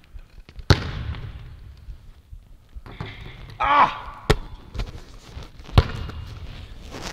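Basketball bouncing in a gym: three sharp, echoing bangs, about a second in, about four seconds in and near six seconds in. A short shout comes just before the second bang.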